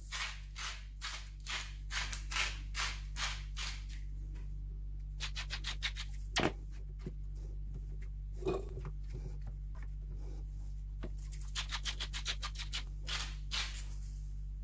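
Hand-twisted salt mill grinding salt in short runs of rapid clicks, with a pause in the middle broken by two single knocks.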